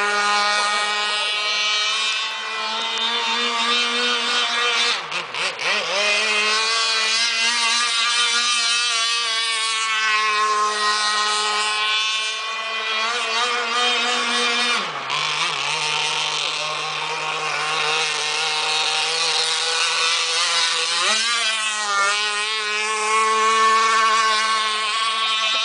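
Zenoah two-stroke gas engine of a radio-controlled racing boat running at high revs, a steady high-pitched note that wavers briefly about five seconds in. It drops to a lower pitch about fifteen seconds in and climbs back up near twenty-one seconds in. This is the boat's first run, and the engine still needs tuning.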